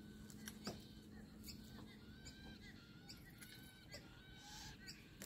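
Faint, high bird chirps repeating again and again, with a soft click about two-thirds of a second in.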